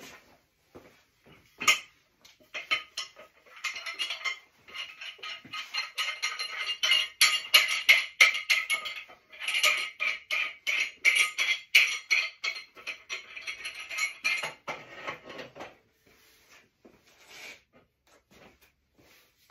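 Steel parts of a Ridgid compound leverage wrench clinking and rattling against each other as they are handled and fitted together. A few single clanks come first, then two long runs of quick metal knocks and jingles from about four seconds in to about fifteen seconds in, followed by a last few clinks.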